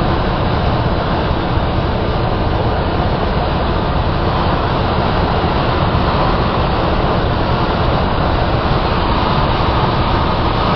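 Steady road and engine noise inside a moving vehicle's cabin: an even low rumble with a hiss above it.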